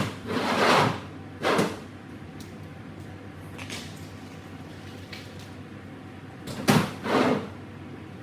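Car wheels being handled and loaded: short scraping and knocking noises, three near the start and two more about seven seconds in.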